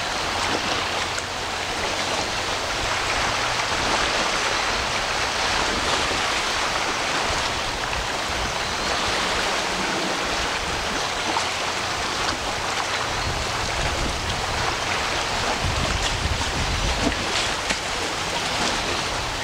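Steady, even rushing outdoor noise, like running water, with no distinct calls or events; a brief low rumble comes near the end.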